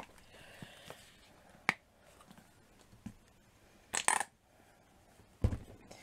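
Craft supplies being handled on a tabletop: a single sharp click, then a quick cluster of clicks and clinks about four seconds in, and a dull knock near the end.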